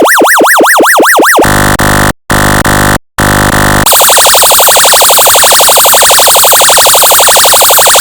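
Loud electronic siren tones made by a function generator. It opens on a fast yelp sweeping up and down about four times a second, then switches at about a second and a half to a harsh steady buzzing horn tone broken by two short gaps. At about four seconds it changes to a rapid, high-pitched pulsing alarm tone.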